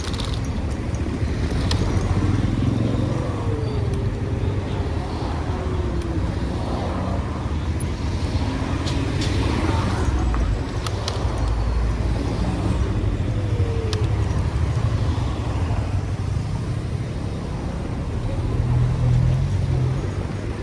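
City road traffic at rush hour: a steady rumble of car engines and tyres, with scattered clicks and knocks. It swells slightly near the end as a vehicle comes close.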